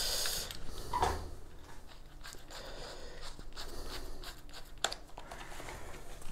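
Rustling and light clicks from tools being handled, with a soft knock about a second in and a sharp click near five seconds.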